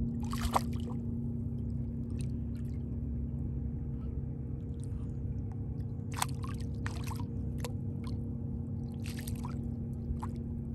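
Hooked sheepshead thrashing at the water's surface on the line: a handful of short splashes, about half a second in, several around six to seven and a half seconds in and again around nine seconds, over a steady low hum.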